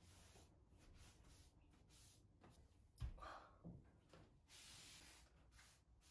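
Near silence with faint rustling as hands work an old glass louvre window, and a soft knock about three seconds in, with a smaller one just after.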